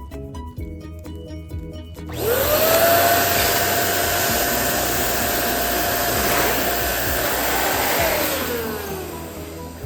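Electric balloon inflator blowing air for about six seconds: a steady motor whine that starts sharply a couple of seconds in, rising in pitch as it spins up, and falls away as it winds down near the end. Light background music plays under it.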